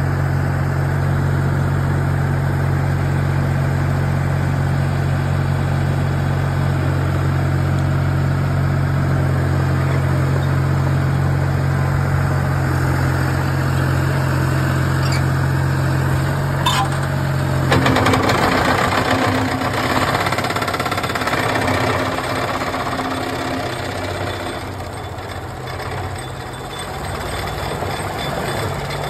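The John Deere diesel engine of a Vermeer Flextrak 75 plow carrier running steadily. About eighteen seconds in, the engine note changes and a rougher, noisier mechanical sound from the working machine joins it, easing off somewhat after a few seconds.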